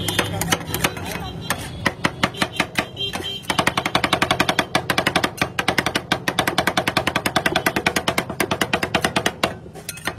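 Metal spatula blades chopping on a steel cold plate for rolled ice cream: a fast clatter of metal-on-metal strikes. It becomes an even, rapid rattle of about ten strikes a second from a few seconds in, then eases off near the end.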